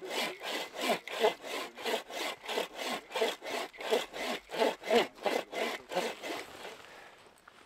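Hand saw cutting through a downed conifer log in quick, even back-and-forth strokes, about three a second, with a rasping bite on each stroke. The sawing stops about a second before the end.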